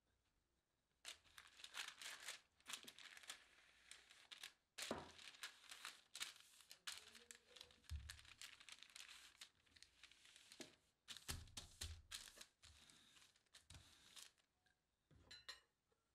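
Parchment paper crinkling and rustling under a wooden rolling pin as chocolate tart dough is rolled out between two sheets. It comes in a series of irregular strokes with a few low thumps from the pin.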